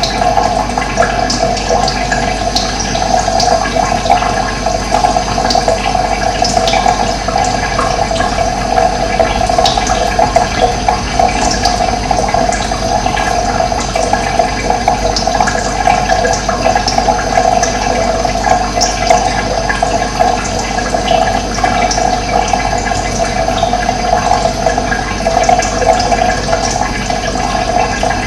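Steady rush of running water, with scattered short high bird chirps over it.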